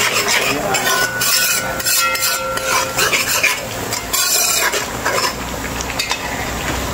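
A large metal spoon stirring and scraping thick curry paste around a metal pot, in repeated strokes, while the curry sizzles as it fries.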